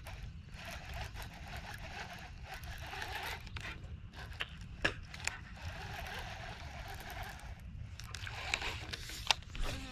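Baitcasting reel cranked in a steady retrieve, over a low steady rumble, with a few sharp clicks, the loudest about nine seconds in.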